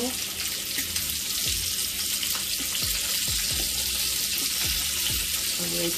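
Steady hiss from a pot of seasoned broth heating on a gas stove burner, with a few soft low thumps.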